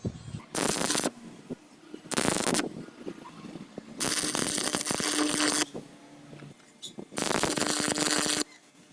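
Electric welding arc crackling and spitting in four separate bursts, the last two longer at over a second each, with short pauses between: a series of short welds or tack welds.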